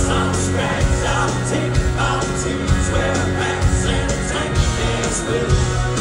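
Live country band playing with a lead voice singing, and drums and cymbals keeping a steady beat.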